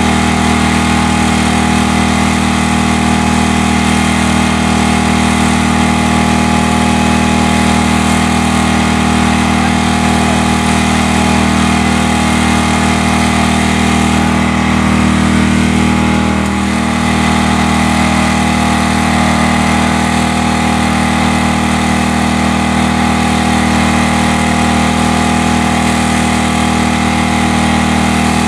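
A small engine running steadily at constant speed, with a brief dip in level about seventeen seconds in.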